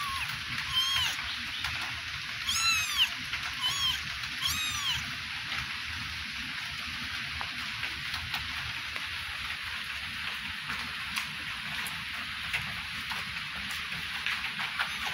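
Young kittens mewing: four short high calls in the first five seconds, each rising and then falling in pitch, over a steady background hiss.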